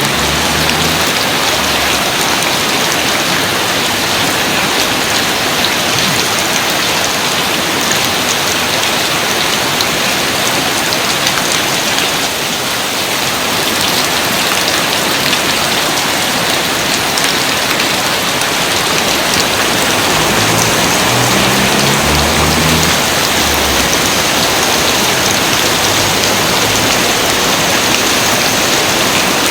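Steady, heavy rain falling: a loud, even hiss of countless drops that keeps the same level throughout.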